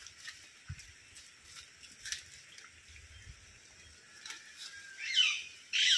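Light scattered drips of rain pattering on an umbrella and leaves, then a bird squawking loudly twice near the end, rough calls falling in pitch.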